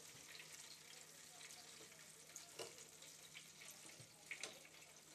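Faint sizzling and crackling of battered chicken tenders deep-frying in hot oil in an electric deep fryer. A few light clicks come from tongs working in the wire fry basket, about two and a half seconds in and again near the end.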